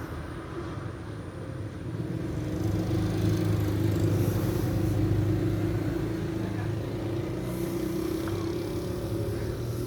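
A motor engine running steadily, growing louder from about three seconds in.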